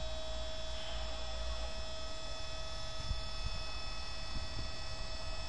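A mobile scissor lift's electric hydraulic pump unit running with a steady hum as it raises the platform.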